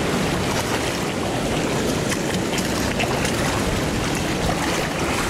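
Shallow seawater washing and splashing around rocks: a steady rush with many small splashes through it.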